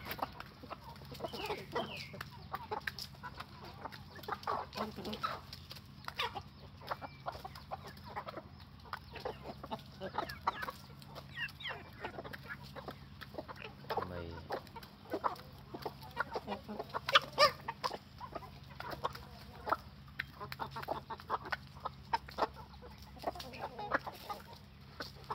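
Chickens clucking softly while pecking food off dry sandy ground, with many quick sharp taps of beaks.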